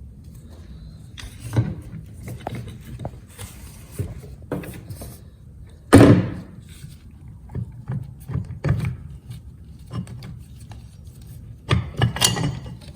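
Scattered clinks and knocks of metal transmission parts being handled as the direct clutch assembly is taken apart, with one loud clank about six seconds in and a quick run of knocks near the end.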